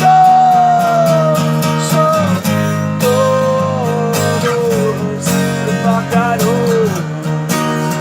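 Acoustic guitar strumming a steady rhythm, with a sliding melody line above it that falls in pitch over several long notes.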